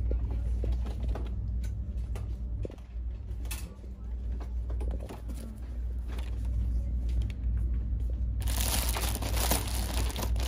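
Rustling and crinkling handling noise with scattered small clicks over a steady low hum; about eight seconds in, a much louder burst of rustling starts and continues.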